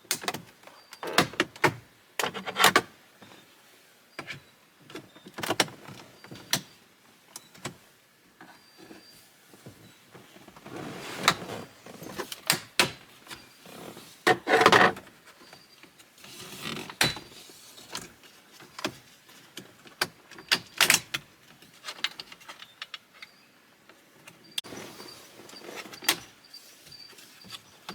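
A screwdriver prying the plastic radio bezel off a 2016 GMC Sierra Denali's dashboard: irregular plastic clicks and knocks as the retaining clips are worked loose, with a few longer scrapes in the middle.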